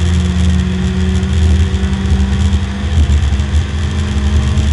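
Porsche 924 race car's four-cylinder engine pulling under load, heard from inside the stripped cabin, its steady note climbing slowly as the car accelerates in a high gear.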